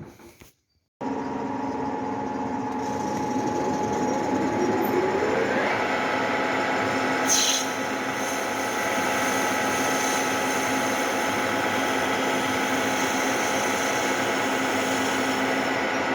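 Electric motor of a homemade sharpening machine running with a steady hum and whine. Partway through, a rising whine climbs as it spins up, and about seven seconds in there is a short high hiss.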